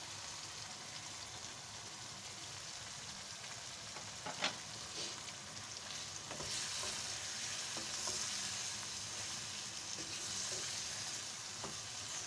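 Chicken and bitter gourd curry sizzling in a non-stick pan as it is stirred with a wooden spoon, with a few light knocks of the spoon against the pan.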